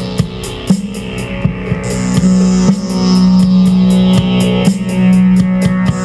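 Rock-style outro music: electric guitar over a steady drum beat.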